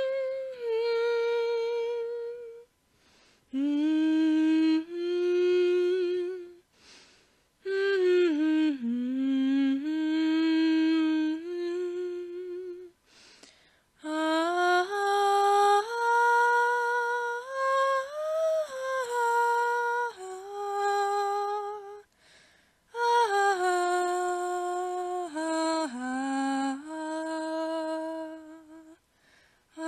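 A voice humming a slow, wordless melody of held notes, in phrases broken by short pauses for breath.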